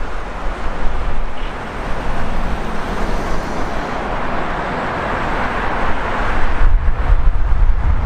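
Highway traffic passing, a rushing noise of tyres and engines that swells to a peak about five to six seconds in. Wind rumbles on the microphone near the end.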